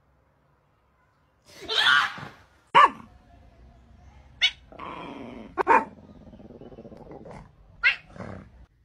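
Several short, loud cries from a pet animal, spaced a second or so apart, with a sharp knock about three seconds in.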